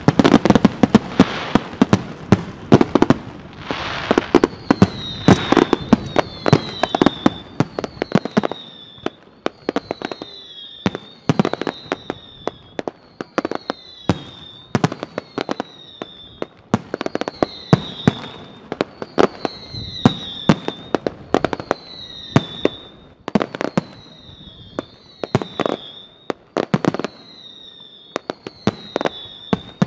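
Fireworks display: rapid bangs of bursting shells, thick and rumbling at first. From a few seconds in, short falling whistles come about once a second between the bangs.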